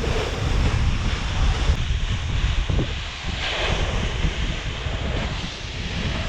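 Wind buffeting the microphone as a rough low rumble under a steady rushing hiss, which swells briefly about three and a half seconds in.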